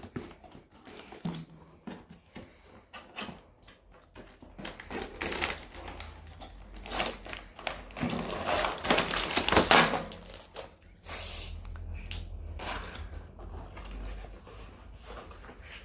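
Toy packaging and pieces being handled: irregular rustling, crinkling and light clicks and taps, loudest about eight to ten seconds in.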